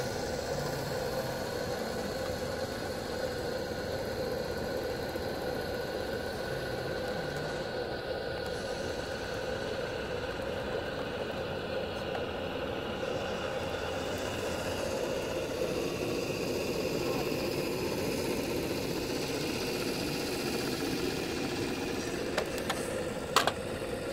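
Homemade 4-cylinder oscillating steam engine with gas-fired boiler running steadily as the model boat cruises. Two sharp clicks near the end.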